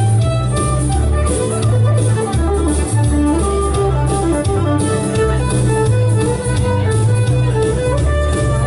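Live country band music: a fiddle takes the lead over electric guitar and a steady, stepping bass line.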